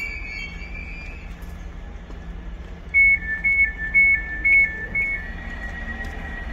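Door-closing warning of an Elizabeth line Class 345 train calling at the platform: five quick two-tone beeps, a higher note then a lower one, about two a second, over the low rumble of the standing train.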